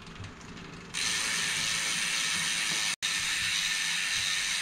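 Trek Marlin 5's rear freewheel ratcheting as the drivetrain is turned over, its clicks running together into a steady high buzz that starts suddenly about a second in.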